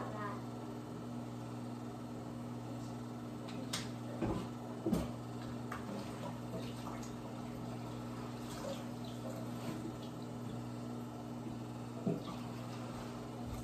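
Quiet kitchen background: a steady low hum with a few light knocks and clicks, one around four seconds in, another about a second later, and one near the end.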